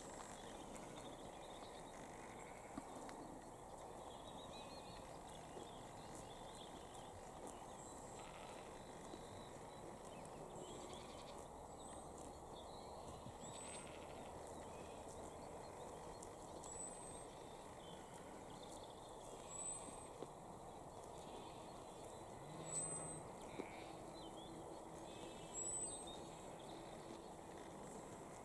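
Faint rural field ambience: a steady low background hiss with small birds chirping. From about halfway through, a short high chirp repeats every second or two.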